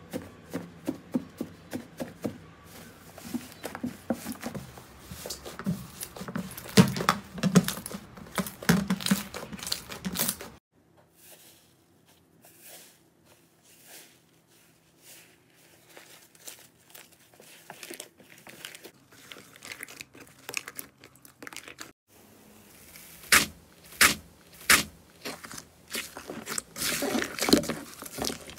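Hands pressing, squeezing and kneading slime: dense crackling and popping clicks for the first third, a much quieter stretch of soft squishing in the middle, then a few loud pops and more crackling near the end.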